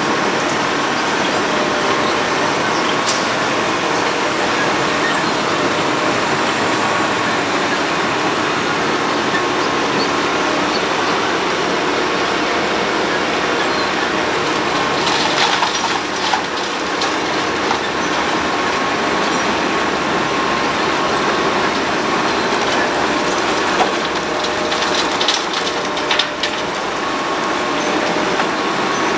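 Road planer running, a loud steady machine din with a constant whine, broken by a few short clatters about halfway through and again near the end.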